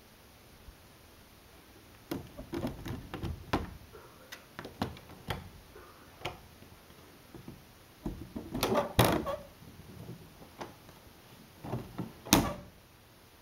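Clear plastic pet-door flap (a Pet Kuguru) clacking and rattling in its frame as a cat pushes at it with its head. Irregular knocks start about two seconds in, come thick and fast around nine seconds, and end with a loud clack near the end as the flap swings after the cat goes through.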